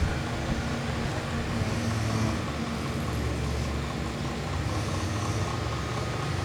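Miyako mini electric fan running steadily: a low motor hum under an airy whoosh, the higher hiss swelling and fading about every three seconds.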